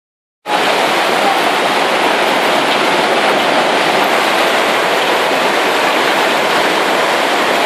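Hailstorm: hailstones and heavy rain pelting down on a street in a dense, steady hiss that starts abruptly about half a second in.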